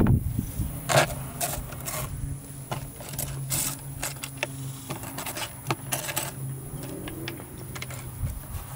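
Irregular sharp mechanical clicks and clatter over a steady low hum.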